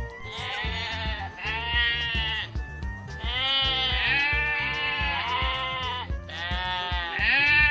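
Sheep bleating: a series of long, quavering bleats, one after another, over background music with a steady beat.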